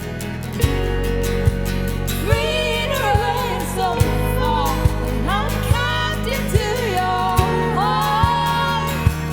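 Christian worship song: a lead voice singing a melody over sustained bass notes, with a steady beat a little more than once a second.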